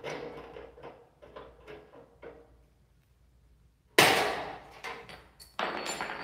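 Tabs being cut and worked off a steel door frame: a run of light metallic clicks and taps, then a sharp metal clank about four seconds in that rings away, and another near the end.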